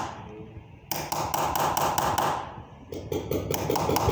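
Small chasing hammer striking a hand-held chasing punch against a metal tray in rapid, even taps, in two runs with a short pause between: hand metal chasing (chekanka) of an engraved ornament.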